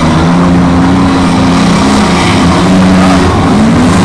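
Engines of small demolition derby cars running and revving, with a brief rise in pitch about three and a half seconds in.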